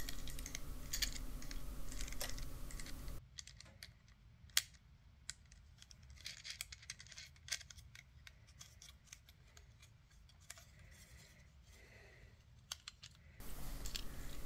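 Faint small metallic clicks and scrapes of steel wing nuts being spun by hand onto M6 screws through a 3D-printed plastic clamp. The background hiss drops out after about three seconds and returns near the end, leaving only scattered clicks.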